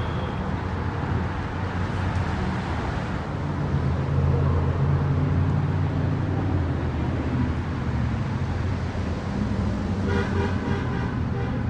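Engines running with a low, steady hum that grows louder a few seconds in and then eases.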